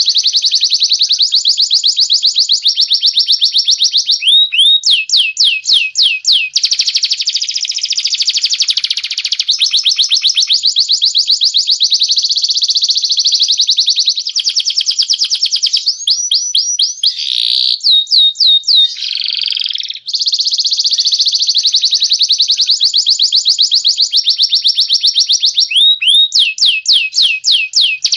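Cage songbirds, a canary and a cililin, singing nonstop in long, very fast trilled rolls. Several times the trills give way to a run of quick downward-sweeping whistled notes.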